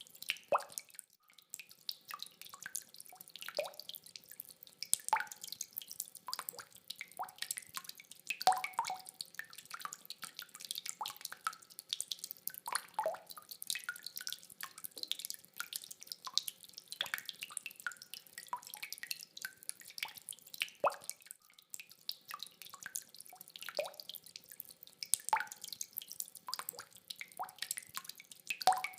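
Rain dripping: close, irregular water drops splashing several times a second, with a few louder drops standing out.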